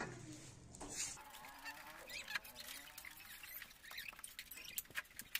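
Knife cutting mustard greens over a steel plate, with scattered sharp clicks and snips. Faint calls sound in the background.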